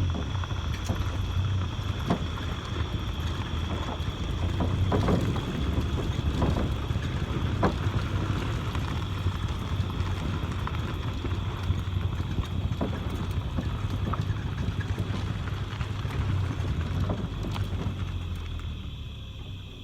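Vehicle engine running at low speed while being manoeuvred, with scattered clicks and knocks over it; the engine sound drops away near the end.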